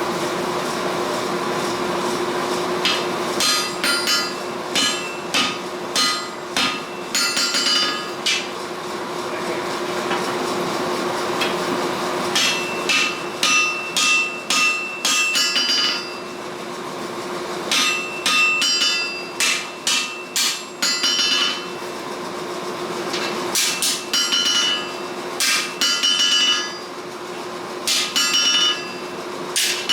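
Hammer blows on hot steel over an anvil, forging a sword's tang: runs of ringing strikes about two a second, broken by pauses of a second or two, over a steady hum.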